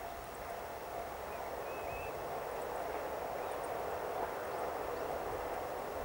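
Four-car KiHa 40 series diesel railcar train approaching from a distance, a low hazy rumble growing steadily louder. A bird chirps about two seconds in.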